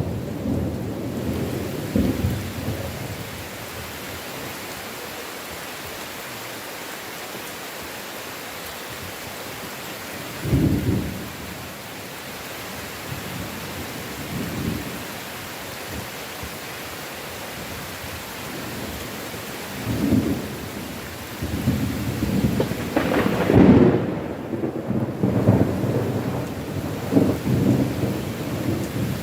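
Steady heavy rain with rolling thunder. Low rumbles swell about ten seconds in and again around twenty seconds, and the loudest, longest roll of thunder comes a few seconds later and rumbles on almost to the end.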